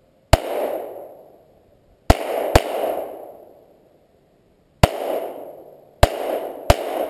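Browning Buck Mark .22 LR pistol firing six shots: one, then a quick pair about two seconds in, then three more in the second half. Each sharp crack trails off in an echo lasting about a second.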